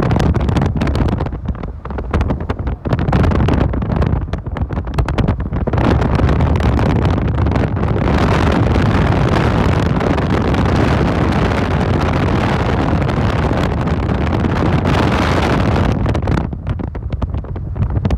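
Wind buffeting a phone's microphone from a moving car, over road noise. It comes in uneven gusts at first, then turns to a steady, dense rush from about halfway through.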